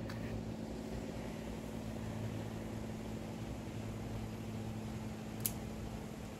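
Steady low machine hum, with a single sharp snip about five and a half seconds in as scissors cut through a snake gourd's stem.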